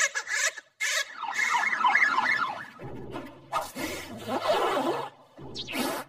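Cartoon soundtrack sound effects: a fast warbling squeal in the first couple of seconds, then lower, shifting vocal noises and a short sharp hiss near the end.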